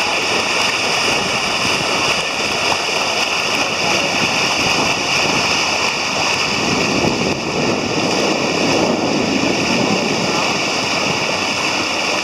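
Steady rush of water streaming along the hull of a sailing yacht under way, with wind on the microphone.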